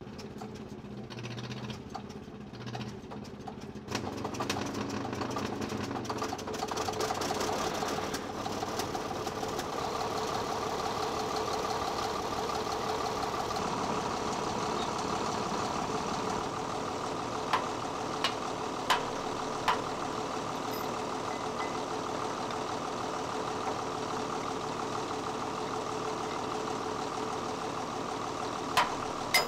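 Caterpillar D8H bulldozer's diesel engine being started: the sound steps up about four seconds in and builds over the next few seconds, then runs steadily. A few sharp metallic clicks come in the second half.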